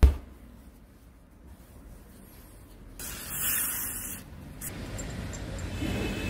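A single sharp knock with a deep thump as a gloved hand strikes a steel jackhammer cylinder part, then about three seconds in a hiss lasting about a second, and a low rumble building near the end.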